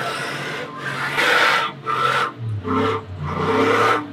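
Ford F-150 pickup stuck in soft sand: the engine runs under throttle while the tyres spin and churn the sand, a coarse rasping hiss that comes in repeated surges, stronger from about a second in.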